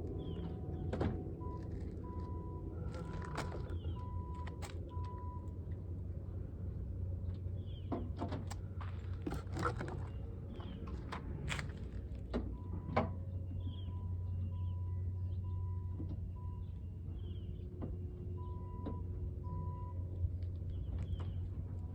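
Plastic turn signal housings being handled and popped into place: scattered sharp clicks and knocks over a steady low hum. A faint repeated beeping tone comes in three runs.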